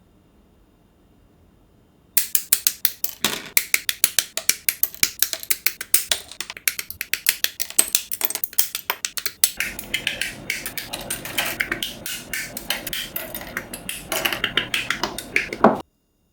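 Rapid, irregular clicking and tapping of hard plastic model-kit parts being handled and worked, several sharp clicks a second. It starts suddenly about two seconds in, grows busier about halfway through, and cuts off abruptly just before the end.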